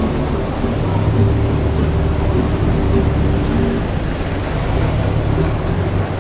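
Road traffic: cars and taxis driving through an intersection, with steady low engine noise and tyre sound.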